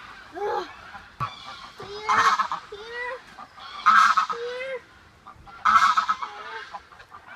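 A large bird calling: three loud, harsh calls about two seconds apart, with quieter, lower calls in between.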